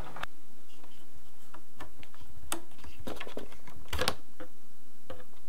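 Scattered plastic clicks and clatter of a GoPro Karma gimbal being twisted and unlatched from the drone's mount, the sharpest click about four seconds in.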